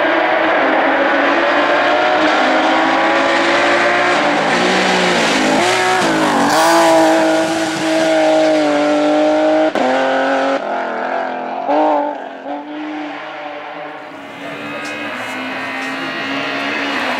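Rally car engine at high revs, with its pitch climbing through quick gear changes and then holding a steady high note. About ten seconds in the note cuts off sharply and drops, with a brief rev near twelve seconds, then the engine fades as the car moves away.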